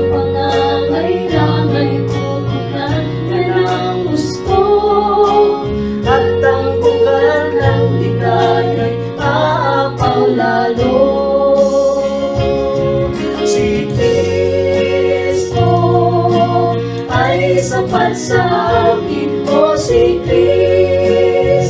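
A Tagalog Christian worship song sung live by female voices into microphones, over electronic keyboard accompaniment.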